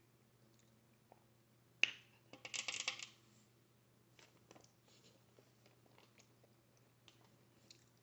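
A sharp snap, then about a second of rapid crackling clicks, as seafood shell is cracked and pulled apart by hand; faint small clicks of eating follow.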